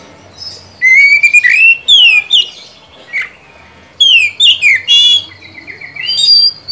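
Oriental magpie-robin singing loud, clear whistled phrases of gliding and falling notes, in two bouts with a short pause between: one starting about a second in, the second starting about four seconds in and ending with a quick run of short repeated notes.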